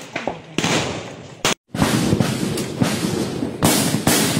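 Gunfire in a firefight. A shot about half a second in rings out with a long echo. After a short break, a clatter of sharp cracks follows, with another loud shot near the end.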